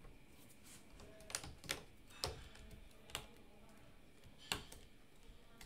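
A few faint, sharp clicks and taps, about five spread over several seconds, as fingers press and fit small parts into the opened Samsung Galaxy S10 Plus during reassembly.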